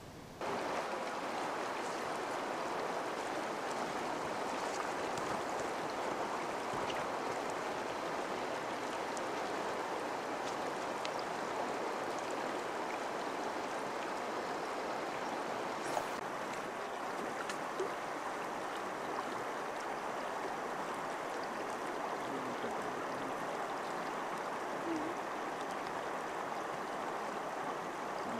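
Steady rush of flowing river water, cutting in abruptly about half a second in and holding even throughout.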